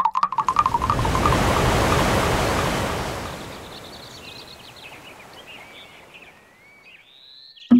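Sound-design effects: a quick run of pops speeds up and merges into a rushing swell of noise like surf, which slowly fades over several seconds. Faint high chirping glides come in as the rush dies away.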